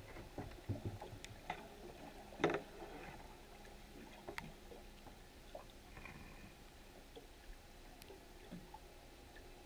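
Faint underwater ambience: scattered small clicks and knocks, more of them in the first three seconds, the loudest about two and a half seconds in.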